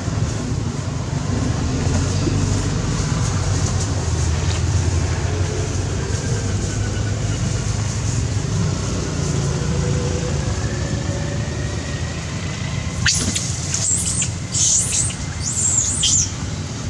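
Steady low background rumble; in the last few seconds a young macaque gives four or five short, high-pitched squeals in quick succession.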